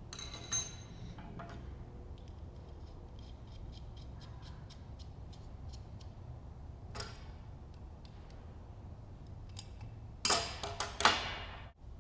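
Small metal parts of a blow gun being handled and fitted together: a ringing metallic clink about half a second in, light ticking, another click, and a cluster of louder clicks and clatter near the end, over a low steady hum.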